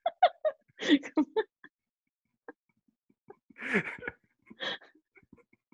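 A woman's stifled giggling in short breathy bursts, near the start, about a second in, and again around four seconds in: the beginning of a fit of giggles.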